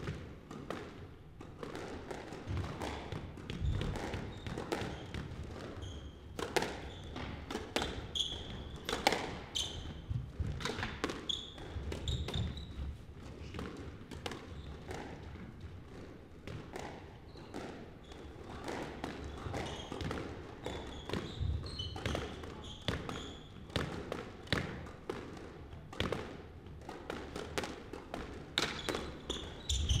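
Squash rally: sharp cracks of the ball off rackets and the court walls at an irregular pace, with sneakers squeaking on the wooden court floor.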